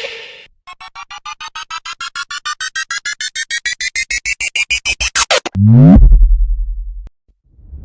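Synthesizer riser effect: a run of short electronic beeps that speed up and climb in pitch for about five seconds, then a quick downward sweep into a loud, deep bass hit that cuts off suddenly.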